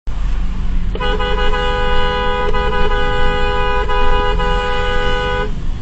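A car horn held down for about four and a half seconds, starting about a second in, with a few very short dips, over a low steady rumble of road traffic.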